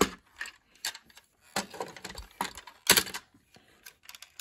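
Plastic parts of a 1986 Transformers G1 Ultra Magnus toy clicking and knocking as they are moved during its transformation. The clicks come irregularly, about seven of them, with the loudest about three seconds in.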